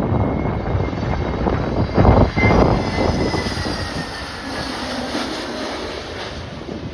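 Jet airliner passing, its engine whine slowly falling in pitch and fading, under heavy storm wind buffeting the microphone with strong gusts about two seconds in.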